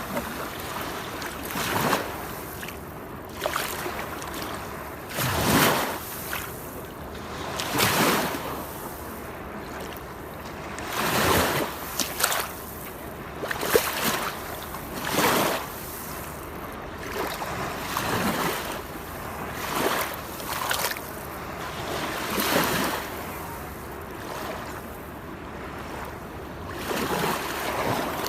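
Rushing water in a continuous hiss that swells into louder surges every two to four seconds.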